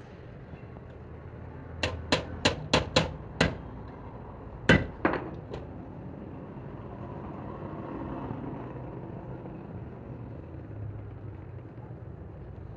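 Hammer blows during truck clutch work: a run of six quick strikes, about three a second, then a louder single strike and two lighter taps.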